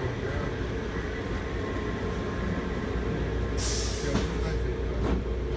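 Taipei Metro Wenhu Line train standing still, heard from inside the car: a steady low hum with a few faint steady tones from the train's equipment. About three and a half seconds in there is a short burst of hiss, followed by a couple of light knocks.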